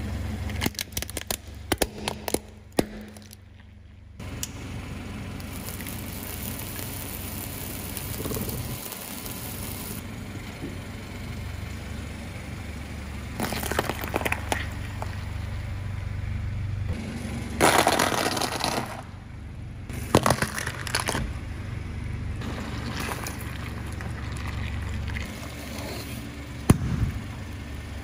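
A car tyre rolling over and crushing objects: a burst of cracks and snaps in the first few seconds as a plastic toy is crushed, then several more crunches and pops spread through the rest, the loudest about two-thirds of the way through. A steady low hum from the car runs underneath.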